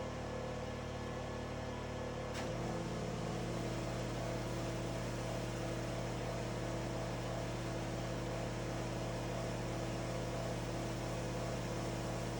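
Gas pressure washer engine running steadily. A click comes about two and a half seconds in, after which its note shifts and grows slightly louder.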